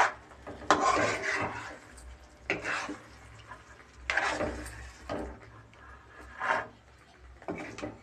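A metal spatula scraping and stirring thick pea-and-mushroom masala around a metal kadhai, in about five irregular strokes. The mixture is being fried before water is added.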